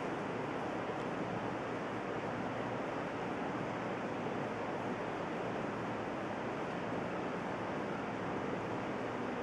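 Steady, even hiss of room tone or recording noise, with no distinct events.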